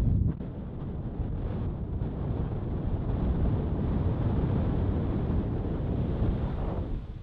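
Wind buffeting the microphone outdoors: a steady, dense low rumble.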